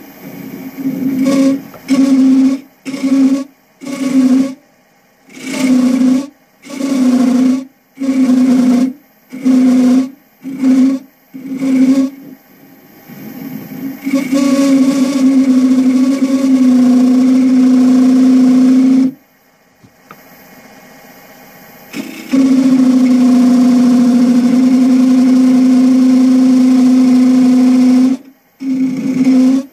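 A handmade parting and beading tool cutting into a bowl blank spinning on a wood lathe. About a dozen short cuts of roughly half a second each, then two long continuous cuts of several seconds each. Each cut carries a steady low hum under a hiss, and the sound drops away whenever the tool comes off the wood.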